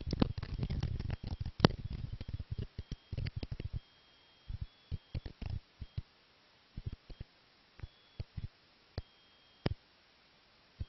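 A run of small sharp clicks and taps, thick and uneven for the first few seconds with one louder click about a second and a half in, then thinning to single clicks every half second or so.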